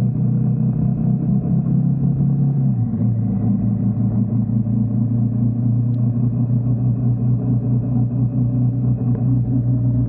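Motorcycle engine running at cruising speed with wind and road noise, heard as a steady, muffled low rumble; the engine note changes about three seconds in.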